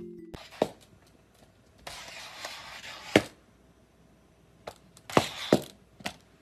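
Several sharp knocks at irregular intervals, the loudest about three seconds in.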